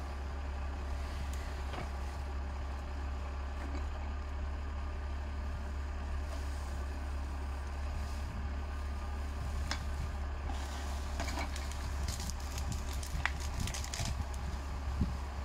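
Tractor diesel engine running steadily while a forestry crane works. From about ten seconds in, branches crackle and snap as the grapple grabs brushwood.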